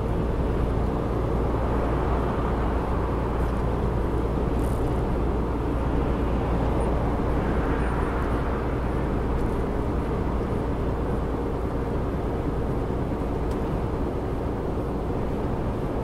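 Lorry driving along: steady engine and road noise at an even level, with no sudden events.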